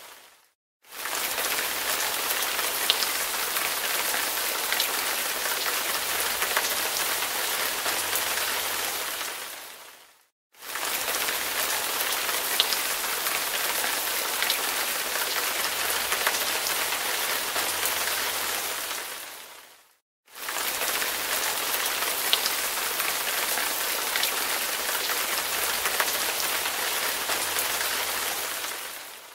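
Steady hiss of falling rain, a looped recording that fades out and starts again about every ten seconds.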